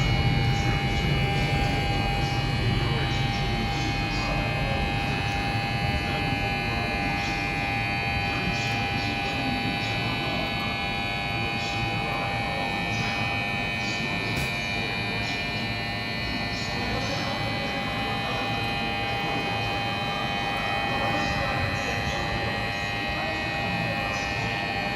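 Busy railway platform ambience: a steady electrical hum with several held tones over indistinct voices, while a low rumble fades away in the first few seconds.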